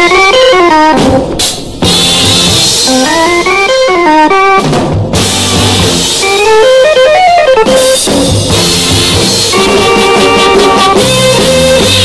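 A 1965 beat-group record playing: a drum kit beat with guitar, and rising runs of notes three times over the first eight seconds, then held chords with fast repeated strokes.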